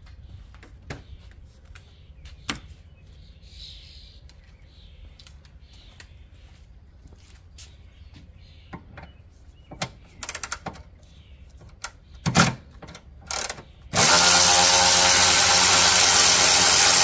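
Cordless electric ratchet running steadily for about three seconds near the end, backing out a long 13 mm bolt. Before it, scattered clicks and knocks of tools and parts being handled.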